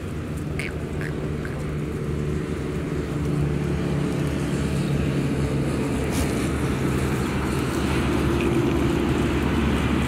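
A motor hums steadily, slowly growing louder.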